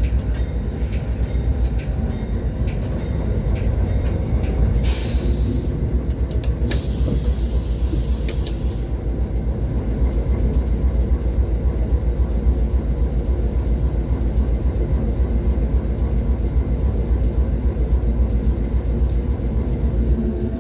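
Train running with a steady low rumble, with regular clicks over the first few seconds. A high hiss comes in briefly near five seconds and again for about two seconds near seven seconds.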